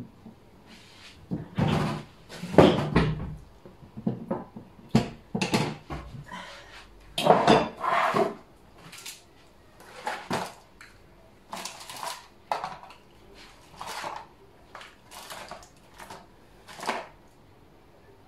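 Kitchen handling noises: a sharp knock at the start, then a string of irregular clatters, knocks and rustles as cookware and ingredients are handled at the counter and stove.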